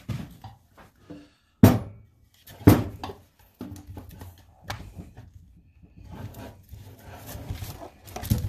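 A log knocking twice against a wooden workbench as it is turned, then a DeWalt cordless drill running as its bit bores into the log to make the centre hole of a Swedish torch.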